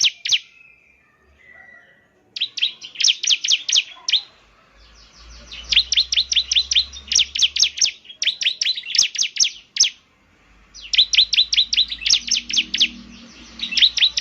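Bar-winged prinia (ciblek) singing: rapid runs of sharp, high chirps, about six a second, in bursts of one to two seconds separated by short pauses.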